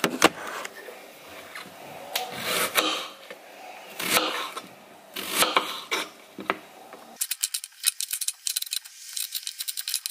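Kitchen handling noises: scattered knocks, clinks and rubbing as cookware and packages are moved about, then a run of rapid light clicks through the last few seconds.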